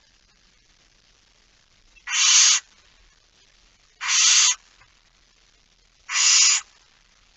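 Barn owl giving three short, harsh hissing calls, each about half a second long and about two seconds apart.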